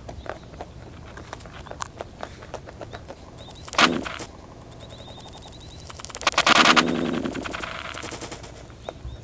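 Wild European rabbit growling as a threat at another rabbit: one short sharp growl about four seconds in, then a longer, rapidly pulsing growl a couple of seconds later.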